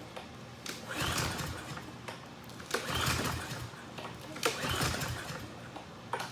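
Lawn mower being pull-started: three pulls on the recoil starter cord about a second and a half apart, the engine turning over without catching. The mower is not starting, which the owner puts down to fuel not yet filling the carburetor bowl after cleaning.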